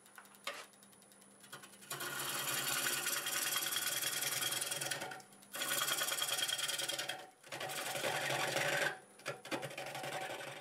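A 5/8-inch bowl gouge cutting a spinning blank of wet green cherry on a wood lathe, over the lathe's steady hum. About two seconds in the cutting starts with a dense shearing hiss, in three long cuts with short breaks, then a few shorter, lighter cuts near the end.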